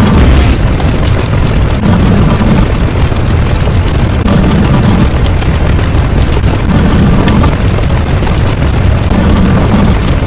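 Dense, heavily distorted sound-effect noise: a continuous rumbling boom at near full volume, with a low pulse that comes back about every two and a half seconds.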